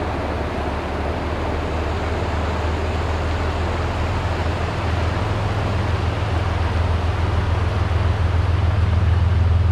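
A GE ES44AC diesel locomotive leading a freight train as it approaches, a steady rushing noise under a low engine drone that grows gradually louder.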